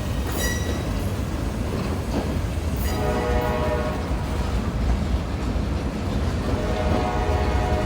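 Freight train rolling past with a steady low rumble of wagons and occasional clicks of wheels over the rail joints. A pitched tone rises out of the rumble about three seconds in and again near the end.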